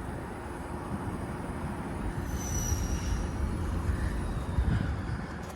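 Outdoor air-conditioner condensing unit running: a steady fan whoosh with a low hum and its airflow gusting across the microphone.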